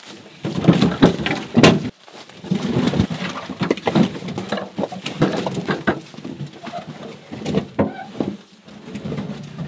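Beech firewood logs knocking together and thudding onto the ground and woodpile as they are unloaded and stacked: a string of irregular wooden knocks with scuffing between them, the loudest about one and a half seconds in.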